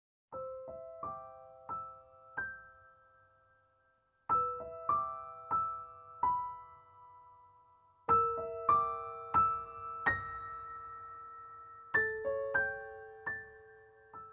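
Slow, gentle solo piano music: broken-chord phrases of a few notes that ring out and fade, a new phrase beginning about every four seconds.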